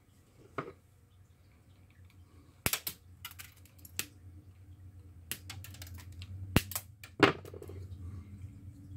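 Scattered sharp clicks and taps from small tools and parts being handled on a workbench, about half a dozen over several seconds, with a faint low hum underneath.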